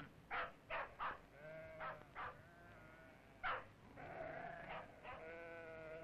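Ewe lambs bleating as they are crowded together: several short calls in quick succession, then longer drawn-out bleats in the second half.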